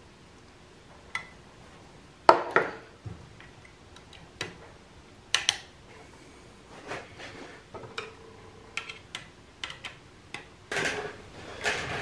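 Needle-nose pliers and a wire end clicking and clinking against a wall switch and its switch box while the wire is hooked and worked onto the terminal: scattered sharp metallic taps, with a busier stretch of handling noise near the end.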